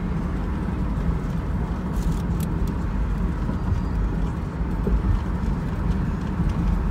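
Steady road and engine noise of a car driving along a city freeway: an even low rumble.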